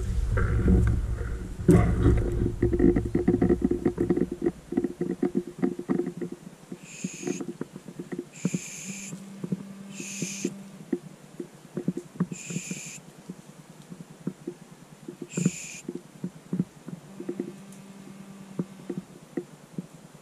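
Footsteps crunching and crackling through dry bracken, twigs and undergrowth, thickest in the first few seconds with a low rumble under them. Partway through come five short high-pitched tones or calls, spaced unevenly over about nine seconds.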